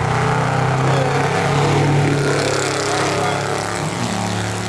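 Two pickup trucks at full throttle on a drag run, a loud steady engine drone that fades a little over the last couple of seconds as they pull away down the track.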